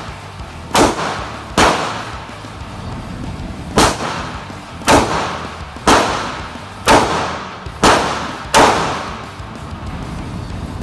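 Semi-automatic pistol fired eight times at an unsteady pace of about one shot a second, each sharp report ringing on in the hard-walled indoor range.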